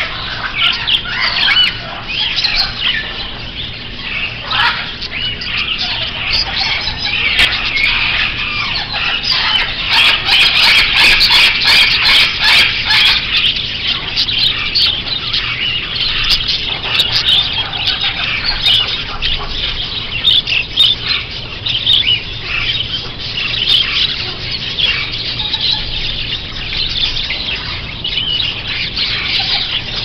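A flock of caged budgerigars chattering and chirping together in a dense, continuous warble, loudest about a third of the way in.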